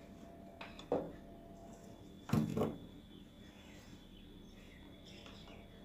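Knocks from handling on a workbench: one sharp knock about a second in, then a louder clatter a little past two seconds, over a faint steady hum.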